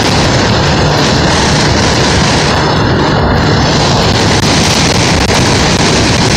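Steady, loud wind rush over the microphone of a vehicle moving at road speed, with engine and road noise beneath.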